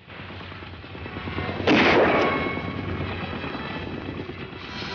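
A rifle shot about two seconds in, with a long trailing echo, over a steady background noise; a fainter second report comes near the end.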